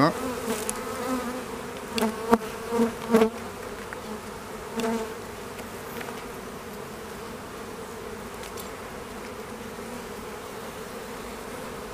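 Honeybee colony humming steadily from an open hive. A few brief knocks come about two to three seconds in.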